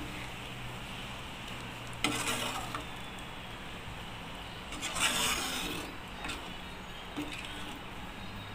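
Ladle stirring and scraping through coconut-milk curry gravy in a pot, with two louder scraping strokes about two and five seconds in.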